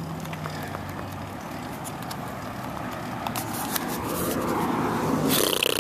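Bicycle riding on asphalt: a steady rush of tyre and wind noise on the microphone, with scattered clicks and rattles from the handheld camcorder. The noise grows louder toward the end, with a brief hiss near the end.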